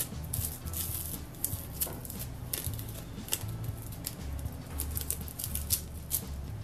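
Masking tape being peeled off a freshly spray-painted metal part and crumpled in gloved hands: a run of short, irregular crackles.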